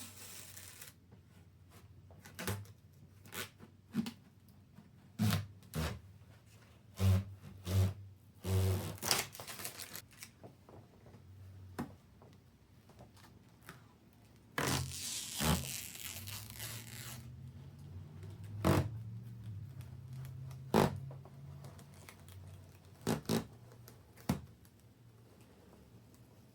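Handling noises: scattered light knocks and clicks, with a tearing sound lasting a couple of seconds a little past halfway through.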